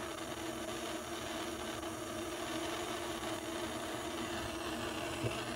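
Jeweler's gas torch burning with a steady hiss, its flame held on a silver bracelet to heat a soldered joint.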